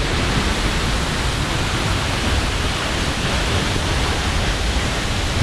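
Steady, even rush of a waterfall heard from close by, falling water and spray filling every pitch with no break.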